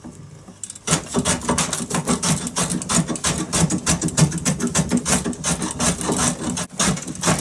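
Stanley No. 4 smoothing plane taking shavings off a maple bass-neck headstock to level its top, pushed in quick short strokes, several a second. The strokes start about a second in.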